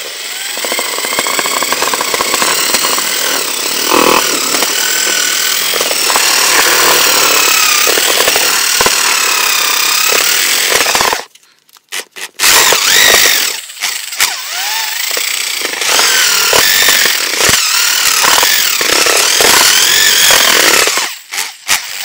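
Handheld electric drill turning a paddle mixer through a stiff flour-and-egg dough mix, its motor whine rising and falling as the speed and load change. It stops briefly about eleven seconds in and again shortly before the end.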